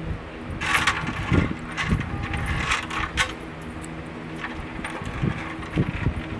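Light knocks and metallic clinks of parts being handled and set down on a workbench, with a short rattle about a second in, over a steady low hum.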